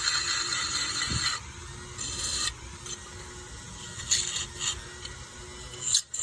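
Wire brush scrubbing rust and paint off the thin, rusted sheet-metal bucket of an old toy model. The scratching is loud at first and breaks off about a second and a half in, then comes back in lighter, intermittent scrapes.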